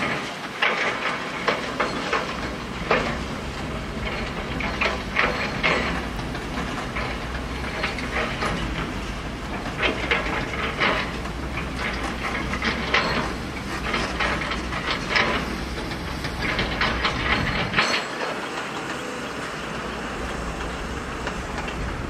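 Dump trucks driving over rough dirt ground: a low engine rumble with irregular clattering and banging, the rumble dropping away about eighteen seconds in.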